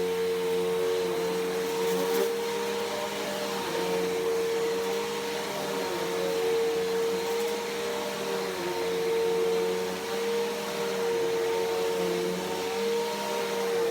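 Bissell PowerForce Helix Turbo vacuum cleaner running steadily: a constant motor whine over airflow noise, its loudness wavering a little.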